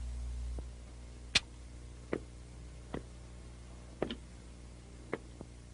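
Slow footsteps of hard-soled shoes: five faint, sharp clicks about a second apart, over a low hum that drops away just after the start.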